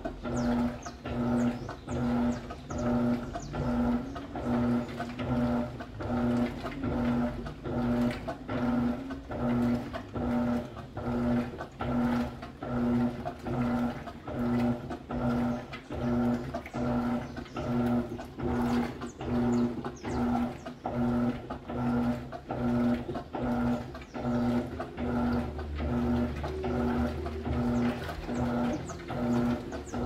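Electrolux LCA 12 kg top-loading washing machine agitating a load in water. The motor hums in a steady pulsing rhythm, about one pulse a second, as the agitator swings the wash back and forth, with water sloshing.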